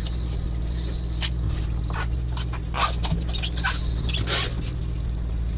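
Sportfishing boat's engine running with a steady low hum. Through the middle come a string of short, irregular scrapes and ticks.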